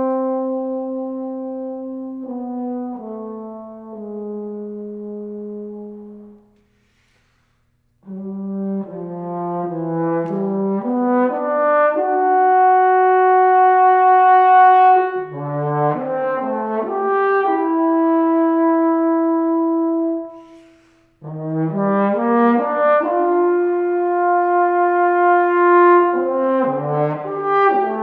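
Unaccompanied French horn playing. A few held notes step downward and die away, there is about a second and a half of silence, then two phrases each climb quickly through short notes to long held notes, with a brief break between them.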